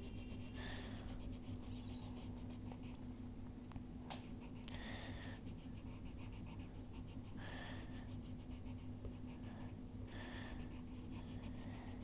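A pencil scratching on paper in rapid back-and-forth shading strokes, in bursts with short pauses. A short breath comes every two or three seconds, over a steady low hum.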